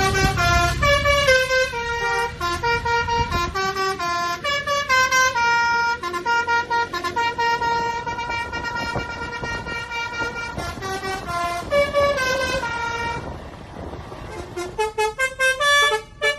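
Basuri telolet bus horn playing a melody of held, stepped notes, with the bus engine's low rumble under the first few seconds. About three seconds from the end it switches to a quicker run of short notes.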